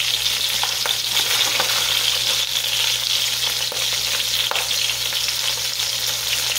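Meat juices and cream of mushroom soup sizzling and spattering in the bottom of a hot enameled cast-iron Dutch oven: a steady hiss with scattered small crackles.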